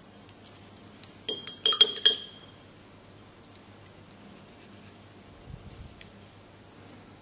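A quick run of light clinks of small hard objects knocking together, with a brief ringing, about a second in. A few faint taps and a soft low thump follow near the end.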